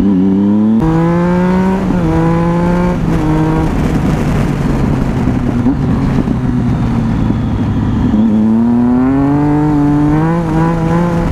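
Triumph 675's three-cylinder engine revving hard as the motorcycle accelerates through the gears. Its pitch climbs and drops back with quick upshifts in the first three seconds, holds steadier midway, then climbs again near the end, over wind rush.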